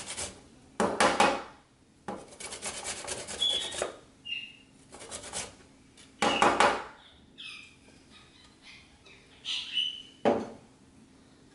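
Fresh ginger being grated on a stainless steel box grater: short bursts of rasping strokes with pauses between them.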